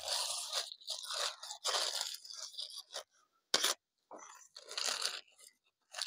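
Thin black plastic bag being handled and pulled open, crinkling and rustling in irregular bursts with a few short pauses.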